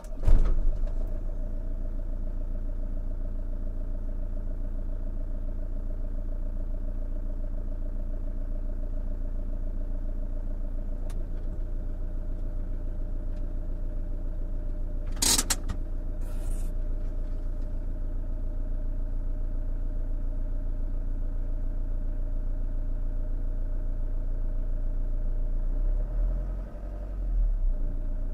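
Renault Master 2.8 dTi van's four-cylinder turbodiesel, heard from inside the cab, catches right at the start and settles into a steady diesel idle. About halfway through there is a single sharp click. Near the end the engine note dips and rises briefly with a light press of the throttle.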